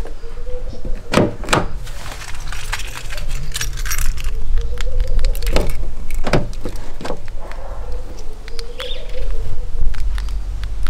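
Keys jangling, with a few sharp clicks and knocks, over a low steady rumble.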